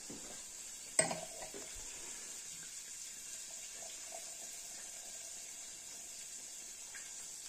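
A glass clinks about a second in, then Prosecco is poured into the glass with a faint, steady fizzing hiss.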